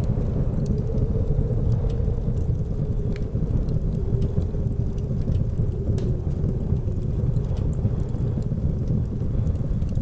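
Blizzard wind as a steady low rumble with a faint wavering howl, with the scattered small pops and crackles of a wood fire over it.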